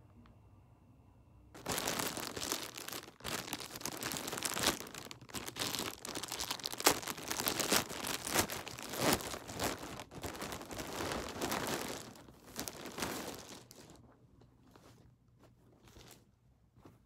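A plastic poly mailer bag crinkles and tears as it is ripped open by hand. This starts suddenly about a second and a half in and dies down after about fourteen seconds into a few soft rustles as the clothing inside is pulled out.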